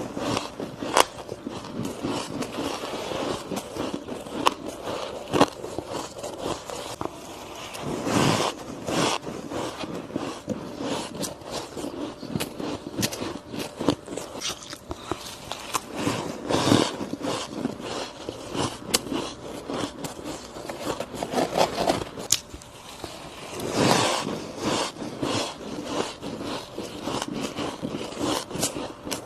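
Close-up crunching and chewing of soft frost and crushed ice, a dense run of crackles and crunches. A louder bite comes roughly every eight seconds, three times, each followed by steady chewing.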